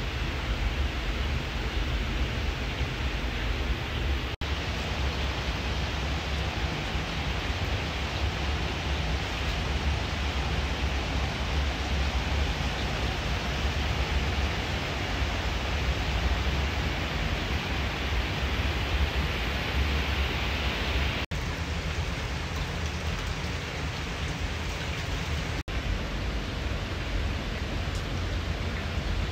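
Steady rush of running water, an even hiss with a low rumble, broken by three split-second dropouts where the shots change.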